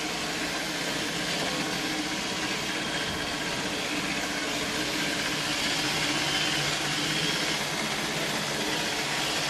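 iRobot Roomba robot vacuum running: a steady mechanical whir of its motors and brushes with faint steady tones.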